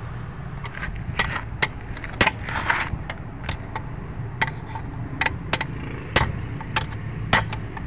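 Sharp metal knocks, about two a second at an irregular pace: a hammer striking the release bearing guide of a Hyundai H100 manual transmission to drive it out of the bell housing. The guide is stuck because its lip has been burred and mushroomed. A steady low hum runs underneath.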